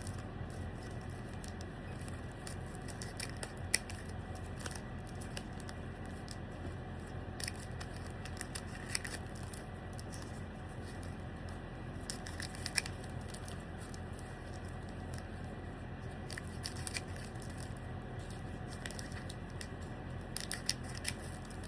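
Pokémon trading cards being handled and flipped through, with soft rustling, scattered light clicks and some crinkling of the booster-pack wrapper, over a steady low hum.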